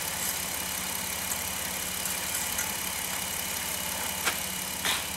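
A 2009 VW Routan's 3.8-litre V6 engine idling steadily, with two light clicks near the end.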